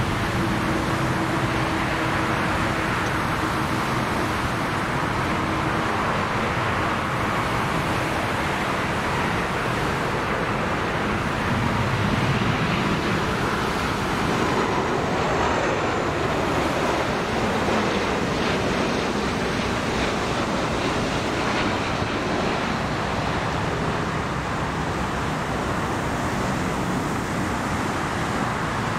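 Airbus A330-300 jet airliner on final approach: the steady roar of its engines and airflow. A faint falling whine comes past the middle as it goes by close overhead.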